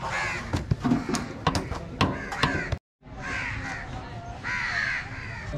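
Crows cawing repeatedly, with sharp metallic clinks of steel cooking pots in the first half. The sound cuts out briefly about halfway.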